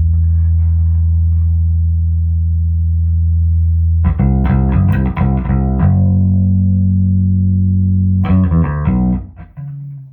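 Electric bass guitar (a Hohner B bass with Seymour Duncan Quarter Pound J pickups) played through a Trace Elliot 12T combo amp driving a 1518T 1x15 cabinet, with no effects. A long held low note gives way to a quick run of notes, another held note, then a second short run, and the sound dies away near the end.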